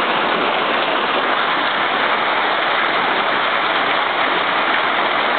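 Large hailstones pelting down in a heavy hailstorm, a dense, steady downpour of impacts.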